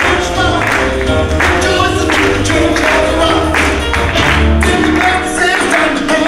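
Upbeat song with a singing voice over a steady beat and bass, played for a puppet show.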